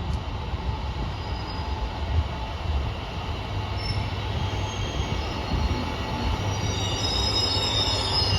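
KiHa 200 diesel railcar rumbling along the platform, growing slowly louder, with a thin high squeal of wheels or brakes joining near the end. The set carries an abnormal noise from car 1551, which was pulled from service the next day.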